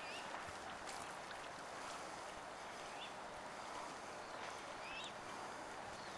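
Steady outdoor hiss beside the water with a few short bird chirps scattered through it: one near the start, one in the middle and one near the end.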